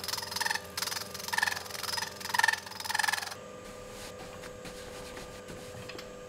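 Metalworking machinery in a factory makes about six short, rough bursts with a pitched squeal in them, then stops suddenly about three seconds in, leaving a steady machine hum.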